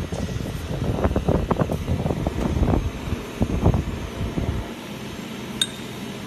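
A large steel slewing ring bearing handled by hand on a bench: irregular low knocks and rumbles over a steady background hum, then a single sharp metallic tick near the end.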